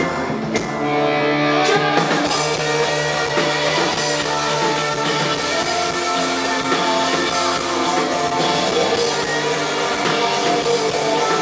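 Rock band playing live: electric guitars, bass guitar and drum kit, loud and continuous.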